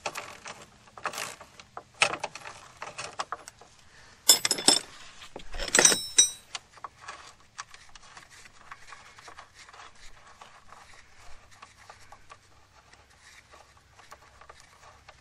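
Hand ratchet and wrench clicking and clanking on steel as a nut and bolt on the underbody reinforcing plate are worked loose. There are two louder metallic clanks with a ringing tone about four and six seconds in, then sparser, softer clicks.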